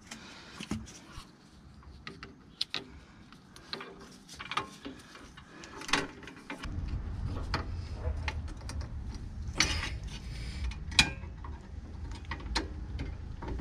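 Small metallic clicks and taps of a brake-shoe return spring being stretched and hooked into the shoes of a Peugeot Boxer's rear drum brake by hand. A steady low rumble joins about halfway through.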